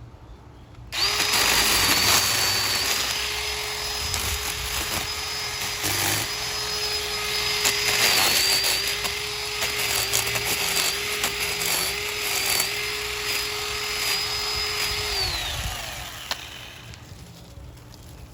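Ryobi 18-volt 10-inch battery mini chainsaw starting about a second in and running with a steady electric whine that sags in pitch a few times as the chain cuts into a small tree trunk, then spinning down near the end.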